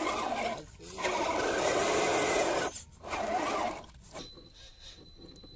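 Electric motor and geared drivetrain of a scale RC crawler whining in three bursts of throttle as it churns through thick mud, falling quiet about four seconds in.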